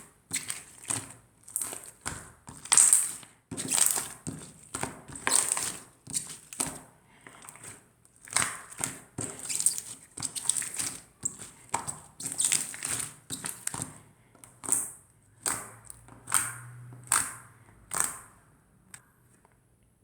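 Clear, chewy slime being squeezed and worked by hand close to the microphone: a steady run of wet, sticky squishes, about one or two a second, that stops about a second before the end.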